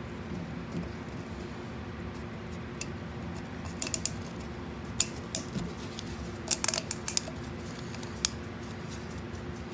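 Scattered small clicks and taps from gloved hands handling a plastic oil filter housing while a new O-ring is worked onto it, in short clusters about four and seven seconds in, over a steady low hum.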